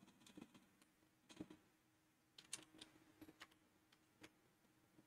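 Faint, irregular clicks of computer keys over near silence, a few scattered keystrokes.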